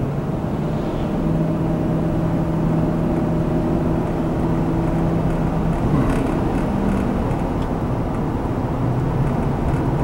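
2005 Ford F-150 pickup's engine and road noise heard from inside the cab while accelerating. The steady engine tone changes about six seconds in as the automatic transmission shifts up into overdrive, showing that the overdrive works again after the broken snap ring was replaced.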